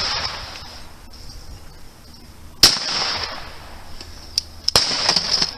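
Shotgun fired at clay pigeons: one loud shot about two and a half seconds in, then a second, quieter shot about two seconds later, each with a short echoing tail.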